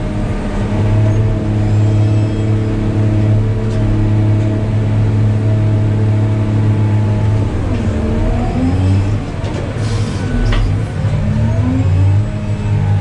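Diesel engine of a New Holland RG140B motor grader running steadily. In the second half its pitch dips and climbs again twice as the revs change under load, with a brief clatter in between.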